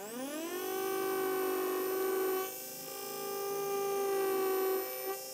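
Surgical implant micromotor and NSK S-Max SG20 contra-angle handpiece spinning a 2 mm twist drill at 1500 RPM. It runs up with a rising whine, then holds a steady high whine while drilling, dipping briefly in level twice.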